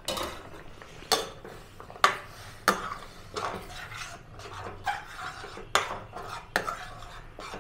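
A spoon stirring semolina cooking in hot water in a kadhai, scraping the pan with a sharp knock against the metal about once a second.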